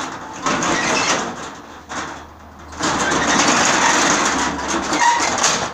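Roll-up steel shutter pushed up by hand, its slats rattling and clattering as they roll up. It goes up in two long runs with a short pause about two seconds in, and the noise drops off near the end.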